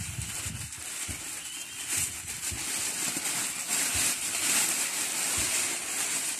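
Rustling and handling noise as things are rummaged through and moved about. It grows louder about two seconds in, with scattered soft bumps.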